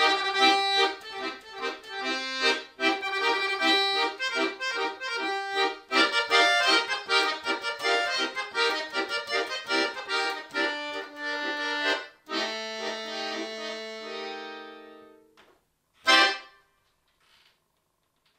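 Chromatic button accordion played solo: quick runs of notes over chords, giving way about twelve seconds in to held chords that fade away, then one short, loud accented chord near the end.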